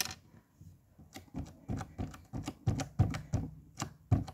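Pink slime being pressed and stretched by hand on a table, giving a string of short irregular pops and clicks, about two or three a second.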